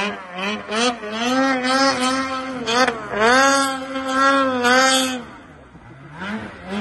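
Turbocharged 850 two-stroke snowmobile engine revving in deep powder. Its pitch rises and falls with the throttle: quick blips first, then two long swells, before it drops off near the end.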